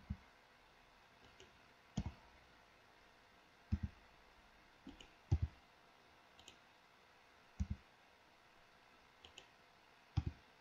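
Faint clicks of a computer mouse and keyboard, mostly in quick press-and-release pairs, about six louder ones and a few softer ones spaced a second or two apart.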